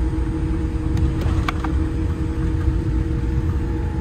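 Steady low rumble of a Boeing 787-8 airliner cabin with a faint constant hum over it. A few light plastic clicks about a second and a half in as the seatback tray table is folded up.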